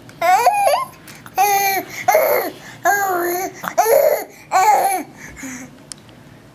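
A young child singing a short high-pitched tune of about five held notes, each wavering slightly, that stops about five seconds in.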